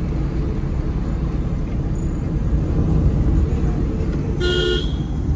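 Steady road and engine rumble of a moving car, heard from inside it. A short steady tone sounds briefly near the end.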